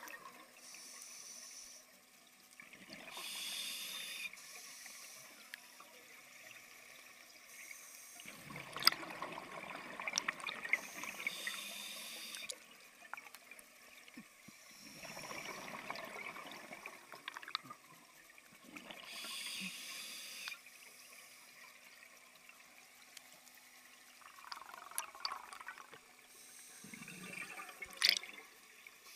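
Scuba regulator breathing heard underwater: short hissing inhales through the demand valve alternating with bubbling surges of exhaled air, repeating several times in a slow rhythm.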